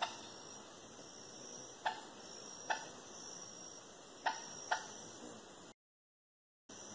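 Steady high-pitched chorus of jungle insects, with about five short sharp clicks scattered through it. The sound drops out completely for about a second near the end.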